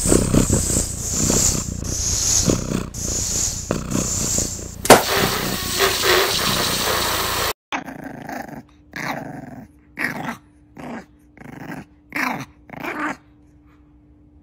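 A loud, scratchy noise that swells and fades in a rhythm, then a sudden cut. After it a bulldog puppy gives a string of about eight short, growly yips over a faint steady hum.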